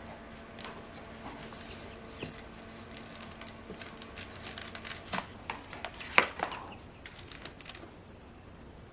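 Soft rustling and clicking of hands opening an incubator to get at newly hatched chicks, over a faint steady hum that stops about five seconds in, with a few sharper clicks around then.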